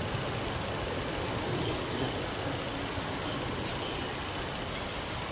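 Steady, high-pitched chorus of insects trilling in the riverside vegetation, unbroken throughout.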